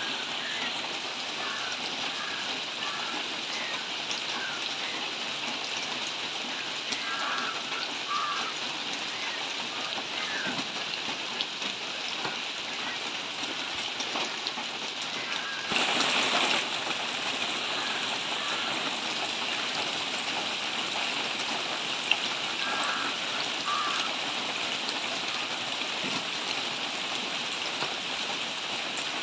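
Steady rain falling on leafy foliage, an even hiss. It swells louder for about a second around halfway through, and there is one sharp tick a little later.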